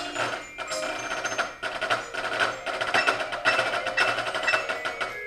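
Marching percussion section playing together: a drumline of snare drums, tenor drums and bass drums striking dense rapid patterns, with the pit's mallet keyboards ringing out tones underneath.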